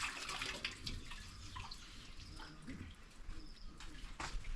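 Faint trickling and dripping of water in a hand-dug water hole, with a few small clicks.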